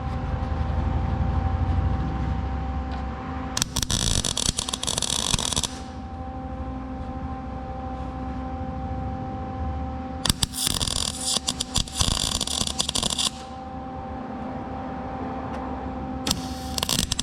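Welding arc crackling in three bursts of two to three seconds each, the last starting near the end, as a steel patch is welded into a car's firewall. A steady electrical hum runs underneath.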